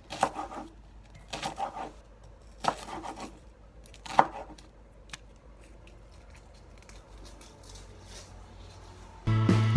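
Kitchen knife chopping shallots on a wooden cutting board: three short runs of quick strokes in the first three seconds, then one sharp knock about four seconds in, then little. Music with a beat comes in near the end.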